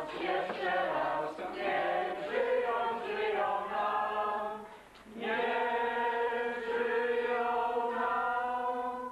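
A group of voices singing unaccompanied. After a brief dip about five seconds in, they hold one long final chord that breaks off near the end.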